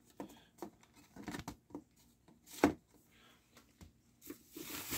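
Faint handling noise: scattered light taps and clicks of a CD and its packaging being moved about on a tiled floor, with a louder knock a little past halfway and a short rubbing scrape near the end.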